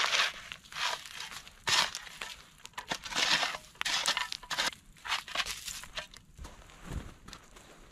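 A shovel scraping and scooping through hot sand, gravel and embers in a series of short strokes, about one a second, spreading the coal bed out evenly.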